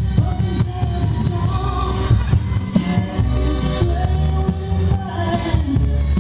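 Loud recorded song with a singer, played for the couples to jive to.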